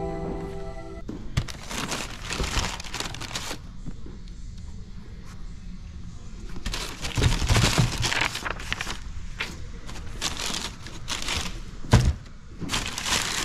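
Tissue paper in a shoebox crinkling and rustling in bursts as a sneaker is unwrapped and lifted out, with a single thump near the end.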